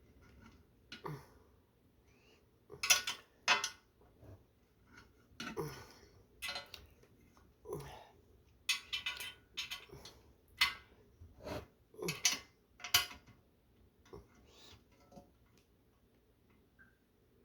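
Irregular metallic clinks and clanks of a wrench and bolt hardware against the fruit press's metal frame while nuts are being tightened, with a short ring after some of the knocks.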